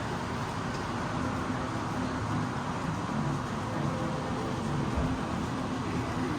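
Steady outdoor background noise, like passing road traffic, with a faint low hum.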